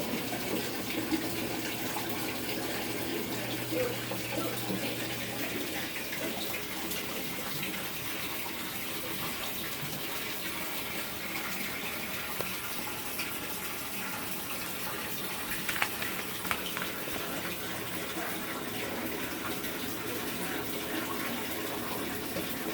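Samsung top-load washing machine filling, water running steadily into its tub, with a low hum that stops about five seconds in.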